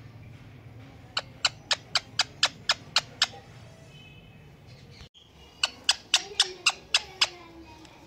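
Indian ringneck parrot giving two runs of short, sharp calls, about four a second, with a pause between them.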